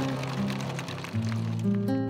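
Background music: held low notes that change pitch every second or so.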